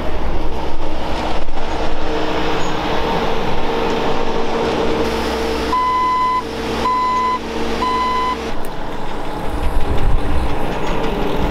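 Skid steer loader engine running steadily, with its reversing alarm beeping three times partway through as the machine backs up. The engine note changes shortly after the beeps.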